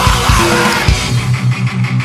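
Fastcore/powerviolence band recording: drums and distorted guitar at full tilt, then about a second in the drums drop out and the electric guitar plays on alone, picking a repeated low note about four times a second.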